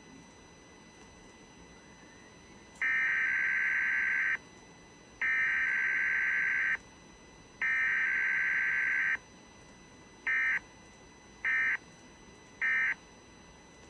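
Emergency Alert System SAME data bursts: a rapid two-tone electronic warble sent three times as long bursts for the header, then three short bursts for the end-of-message code, relaying the EAS test.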